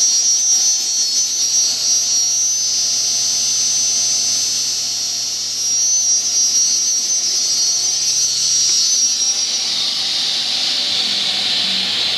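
Grizzly G0588 sliding table saw running freely with its 7.5 horsepower motor and 12-inch blade spinning, a loud, steady high whine over a hiss. Near the end the whine softens into the hiss.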